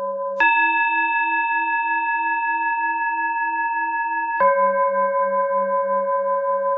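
Tibetan singing bowl tones used as a breathing pacer: a lower bowl tone ringing steadily switches abruptly to a higher bowl tone about half a second in, which holds for about four seconds (the cue to breathe in), then cuts back to the lower tone (the cue to breathe out). Each tone rings with several steady overtones and a slow wobble.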